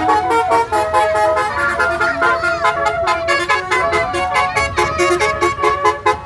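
Basuri telolet multi-tone bus horn playing a fast melody: several horn tones sound together and jump to new notes several times a second, with sharp clicks between them.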